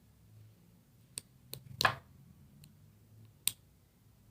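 A small spoon giving a few light, separate clicks and taps against a bowl while baking soda is spooned into water.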